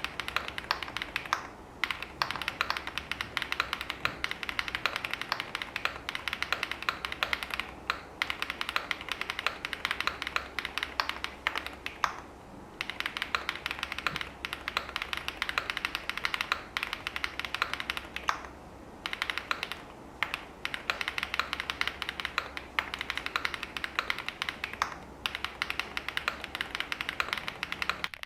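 Steady fast typing on an Angrymiao AM Relic 80 mechanical keyboard with SW x Haimu MP Tactile switches (POM housings, UPE stem with metal pole tip), an FR4 plate, a leaf-spring mount and DMK rubber keycaps. The keystrokes come as a dense run of clicks, broken by a few brief pauses. It is picked up by the camera's microphone, with a faint low hum underneath.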